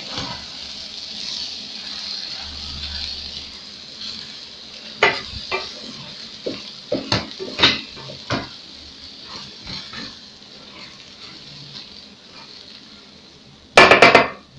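Vegetable rice sizzling in an aluminium pot on a gas burner, a steady hiss, with scattered clinks and knocks of a wooden spoon against the pot. Near the end there is a loud clatter as the rice is stirred.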